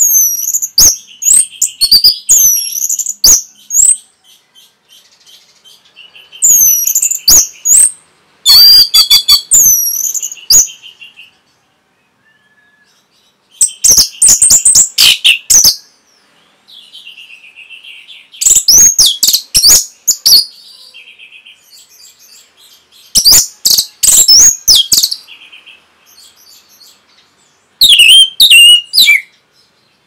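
Orange-headed thrush singing: about seven loud phrases of quick, high whistled notes and trills, each a second or two long, with short pauses between them.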